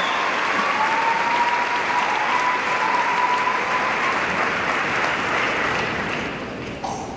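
Audience applauding a speaker's arrival at the podium, the applause fading away near the end.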